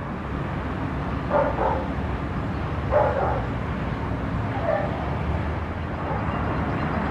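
A dog barking about three times, at roughly one-and-a-half-second intervals, over a steady low rumble.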